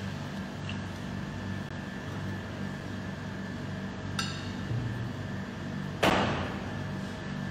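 Handling of utensils and metal tart tins on a kitchen worktop: a light metallic clink about four seconds in, then a louder knock about six seconds in, over a steady background hum.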